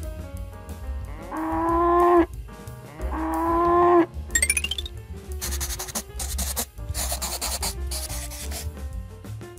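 A cow mooing twice, each moo about a second long and swelling in loudness, over background music. Just after, a short rising whistle, then the scratchy rub of a marker drawing on a board.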